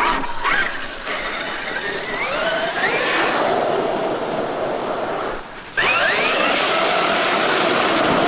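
Traxxas X-Maxx electric RC monster truck being driven, its brushless motor and drivetrain whining up in pitch as it accelerates over a steady noise of tyres on the ground. The sound drops away briefly a little after five seconds, then picks up again with another rising whine.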